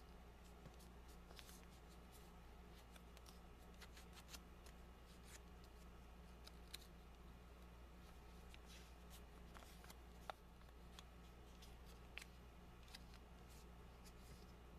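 Faint, irregular crackles and rustles of a one-dollar bill being folded and creased by hand, over a steady low hum.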